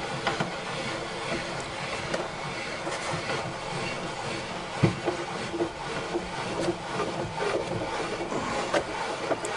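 Wooden tilt mechanism of a homemade table saw being worked by hand: plywood parts rubbing and creaking against each other, with scattered small clicks and a sharper click about five seconds in.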